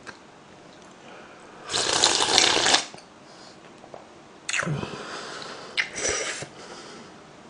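A person slurping instant ramen noodles and broth from a bowl: one long slurp about two seconds in, then two shorter slurps in quick succession a little later.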